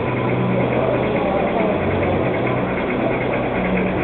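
Gauge 1 model trains running on a layout make a steady mechanical hum whose low part pulses about once a second, with visitors chattering in the background.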